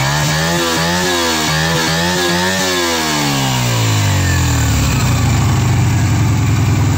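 Yamaha Virago XV125's small V-twin engine, breathing through a muffler drilled through with holes, being revved: the revs rise and wobble up and down with quick throttle blips for the first few seconds, then fall back about three seconds in to a steady idle.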